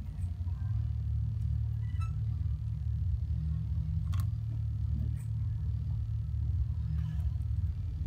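A steady low rumble, with a few faint clicks of small plastic building blocks being handled and pressed together, the plainest a little past halfway.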